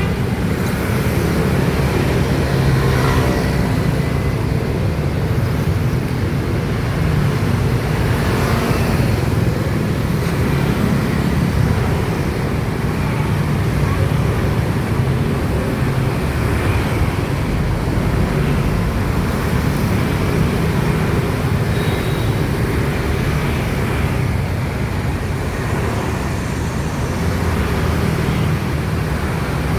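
Steady road traffic noise, with motor vehicle engines running close by.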